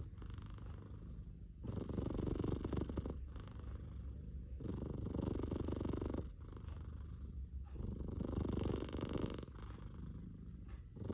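Domestic cat purring steadily, swelling and easing with its breathing: three louder stretches of about a second and a half, each followed by a softer one.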